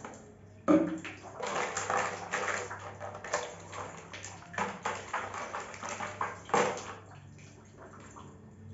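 Water splashing and sloshing as makeup brushes are worked in soapy water, starting with a sharp splash about a second in and stopping about seven seconds in.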